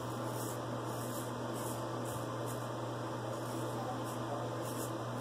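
Vintage George & Sons Sheffield straight razor scraping through lathered stubble on the neck, in short, quick strokes about every half second to second.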